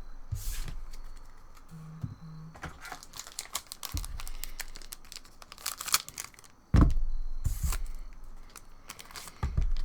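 Foil booster pack wrapper crinkling and being torn open, a rapid run of crackles, with a single thump about seven seconds in.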